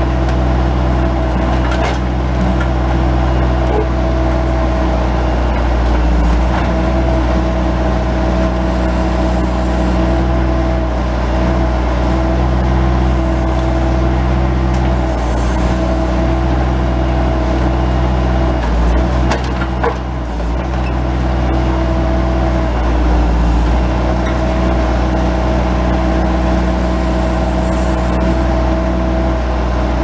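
Bobcat S185 skid-steer loader's turbo diesel engine running steadily while its 911 backhoe attachment digs. The engine note dips briefly a few times as the backhoe works.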